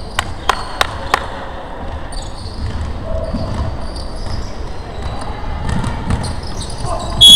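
Basketball bouncing on a hardwood court, four sharp bounces about a third of a second apart in the first second and a half, then players running in a large echoing gym. A loud high-pitched sound starts right at the end.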